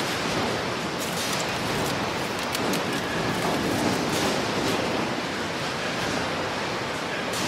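Steady rushing noise with scattered sharp clicks, like a rumbling mechanical ambience.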